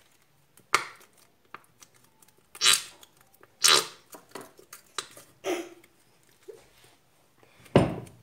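Squeezed plastic glue bottle spluttering out glue and air in about five short, sputtering squirts, the last one with a low thump.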